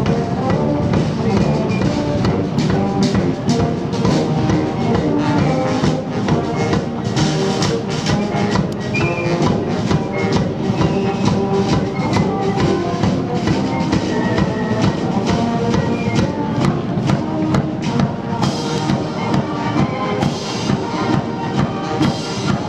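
Military marching band of brass and woodwind (trombones, euphoniums, clarinets, saxophones) playing a march on the move, over a steady drumbeat.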